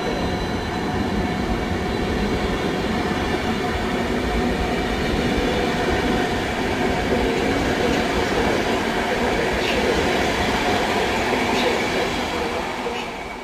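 Intercity passenger coaches rolling past close by as a departing train gathers speed: a steady rumble of wheels on rail with a faint, thin steady squeal above it. It starts to fade out at the very end.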